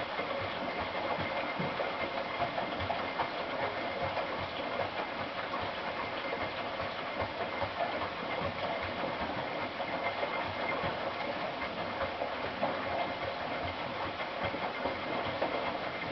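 Hotpoint NSWM 843C 8 kg washing machine with an inverter motor, running during its rinse and spin cycle. It makes a steady hissing whir with a faint thin whine and scattered soft low knocks.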